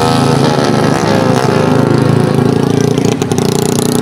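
Small motorcycle engines running at low revs, their pitch falling over the first two seconds and then holding steady. A few sharp clicks sound about three seconds in.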